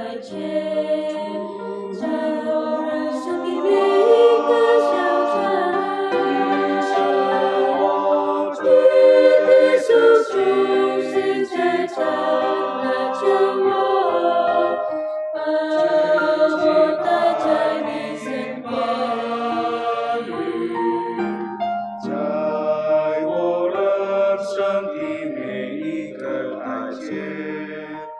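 Mixed choir of men's and women's voices singing a Mandarin hymn in parts, swelling louder from about four seconds in.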